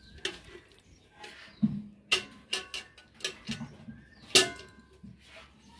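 Stainless-steel milk pail clinking and knocking as it is handled and set down, in a string of separate sharp knocks, the loudest about four seconds in with a short metallic ring.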